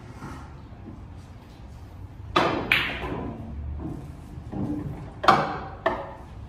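Pool cue tip striking the cue ball, followed a moment later by a sharp clack of ball on ball. The balls then roll on the cloth, and two more knocks come close together near the end as balls hit again.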